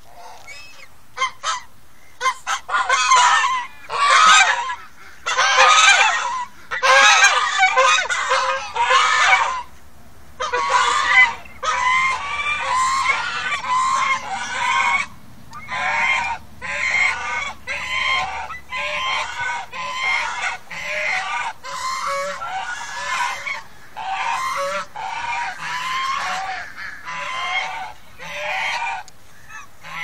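A flock of domestic geese honking, calls overlapping almost without a break from about a second in, loudest in the first third.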